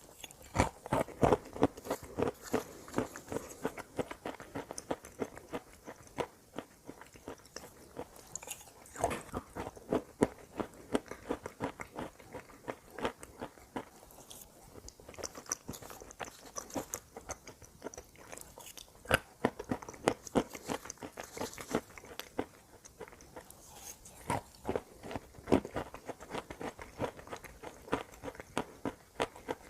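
Close-miked biting and chewing of hard, crunchy chalk and dried clay. Sharp crunches come in clusters of a few seconds each, with short quieter pauses between them.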